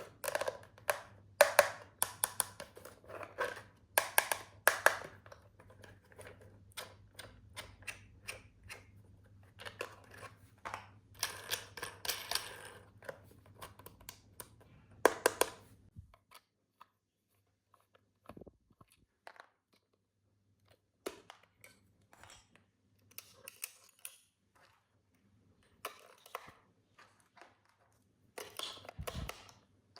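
Hands unpacking and handling a plastic toy and its packaging: irregular clicks, taps and short rustles, thinning out to occasional clicks about halfway through.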